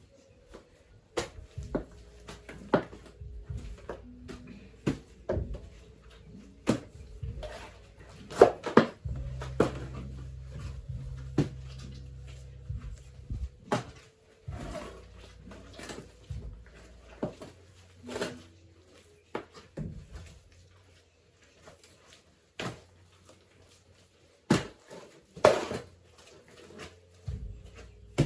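Irregular sharp knocks and scrapes of hand work with tools, about one every second or two, with a low hum for a few seconds near the middle.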